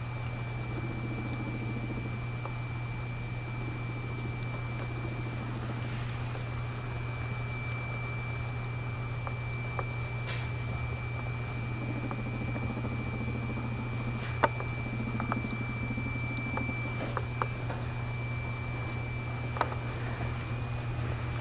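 Room tone: a steady low hum with a thin, faint high whine over it, and a few scattered small clicks and taps.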